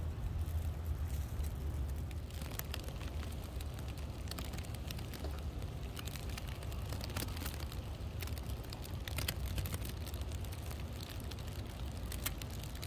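Wind rumbling on the microphone, with scattered small crackles and ticks that start about two seconds in.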